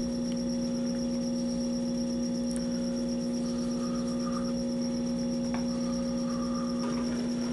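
Taig lathe's electric motor and spindle running at a steady speed with a constant hum while a 7/16-inch drill bores into aluminium, the motor not slowing under the drilling load.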